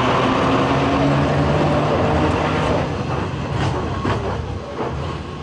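Heritage electric tram running away along street rails, its motor hum and wheel noise fading as it goes, with a few clicks from the wheels a few seconds in.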